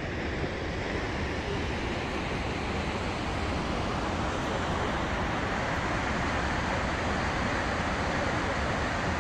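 Waterfall of the Guadalevín river rushing steadily down a rock gorge, growing a little louder over the first few seconds.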